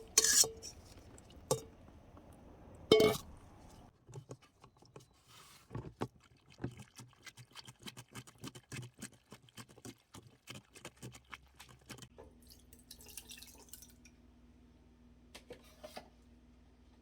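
Kitchen work with water and utensils: two sharp knocks, then a long run of small drips and clicks, then a faint steady low hum from about twelve seconds in.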